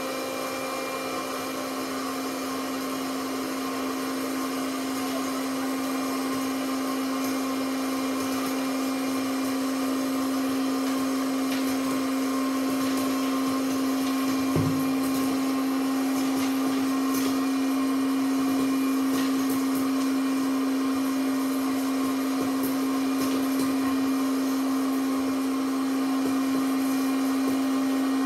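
Small electric popcorn machine running with a steady, loud motor hum, a few faint ticks over it. A single light knock about halfway through.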